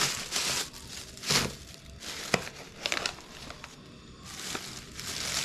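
Thin black plastic carrier bags rustling and crinkling in irregular bursts as a hand rummages in them, with one sharp click a little over two seconds in.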